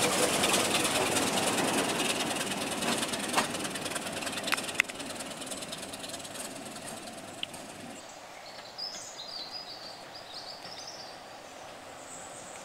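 Diesel train pulling out and moving away: engine and wheel noise fading steadily, with a few sharp clicks from the wheels about three to five seconds in. Birds chirp faintly once the train has gone.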